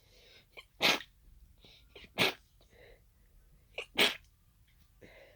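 A person sneezing three times in a row, about a second and a half apart, each sneeze preceded by a short catch of breath: a sneezing fit from an irritated, tickling nose.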